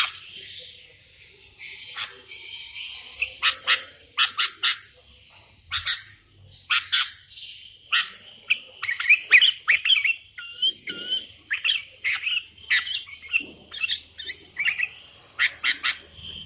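Sooty-headed bulbul singing and calling in a busy run of short, sharp chirps and whistled notes, one after another with only brief gaps.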